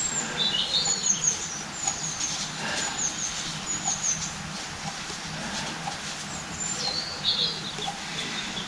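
A small bird chirping: short high notes repeated about once a second, with a lower warbled phrase about half a second in and again near the end. Faint clicks sound underneath.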